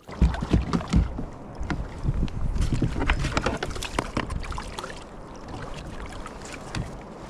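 Knocks and clatter of gear being handled on a fishing kayak over a low wind rumble on the microphone, busiest in the first four seconds.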